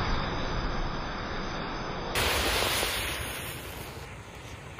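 Rushing roar of a mass of match heads flaring up together, dying down steadily toward a softer burning hiss, with a brief surge about two seconds in.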